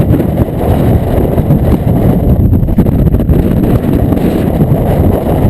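Hurricane wind buffeting the microphone: a loud, continuous low rumble that rises and falls with the gusts.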